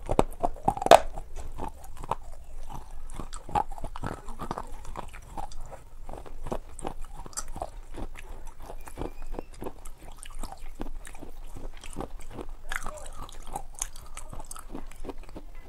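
A person chewing and biting food, with a steady run of small wet mouth clicks and smacks; a louder bite about a second in.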